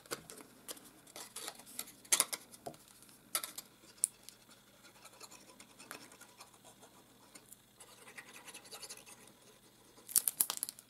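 Red cardstock handled and rustling, with the sponge tip of a Tombow liquid glue bottle scratching along the paper flaps in short strokes. A louder flurry of paper rustling comes near the end.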